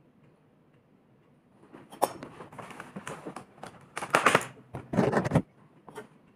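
Food being handled and packed into a stainless steel lunch box: a sharp tap about two seconds in, then irregular bursts of rustling and scraping, loudest in two spells a little past the middle.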